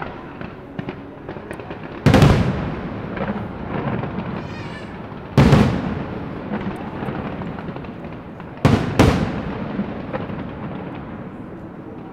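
Fireworks going off: loud booms about two seconds in and again about five and a half seconds in, then two in quick succession near nine seconds, each trailing off into a rumble, over a continuous crackle.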